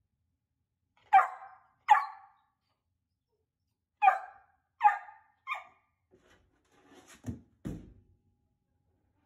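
Bernedoodle puppy barking: five short, sharp barks, a pair about a second in and three more a few seconds later. A few softer, lower thumps follow near the end.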